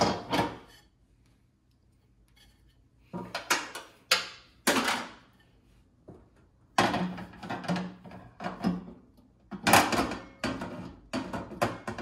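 Microwave glass turntable tray and its plastic turntable parts being lifted out and set back in, knocking and clattering in several short bursts. The tray won't sit right because the turntable drive stands up too far.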